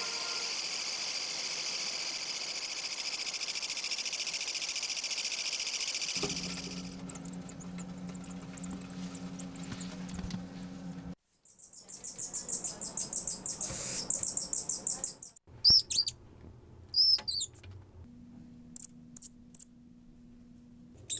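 Night-time forest animal sounds: first a steady high chorus, then, about eleven seconds in, a loud, fast-pulsing high trill lasting about four seconds, followed by scattered short high chirps, some falling in pitch.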